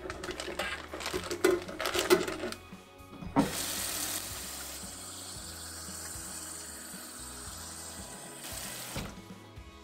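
A plastic Ziploc bag rustling as it is pressed into a stainless-steel ultrasonic cleaner tank. About three seconds in, a kitchen tap starts running water into the tank, a steady splashing fill that stops shortly before the end.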